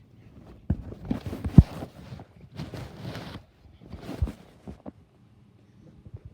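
A handheld camera being handled and set down: a run of knocks, bumps and rustling against the microphone, the loudest about one and a half seconds in. After about five seconds the handling stops, leaving a faint steady low hum.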